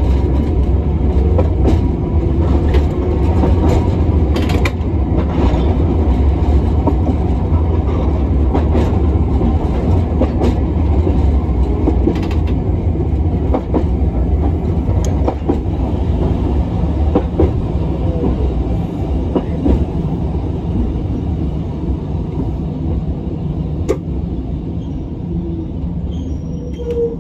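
Hiroshima Electric Railway 1900-series tram (a former Kyoto city streetcar) running along the line: a steady rumble of motors and wheels, with scattered clicks from the rail joints. The rumble eases off somewhat near the end.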